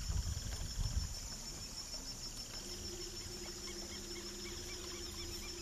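River ambience at dusk: a steady high insect drone, with a run of short, evenly repeated bird chirps, about two a second, through the middle. A low rumble fills the first second, and a faint low hum joins about two and a half seconds in.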